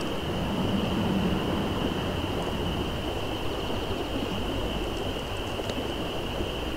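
Steady rushing of a river, with a constant high-pitched note running through it.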